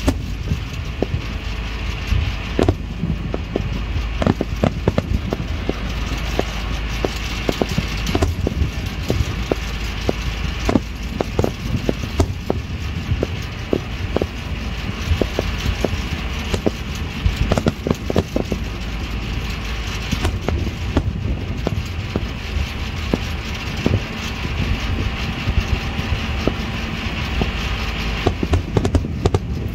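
Aerial fireworks shells bursting in an irregular run of bangs and pops, several a second at times, over a steady low rumble.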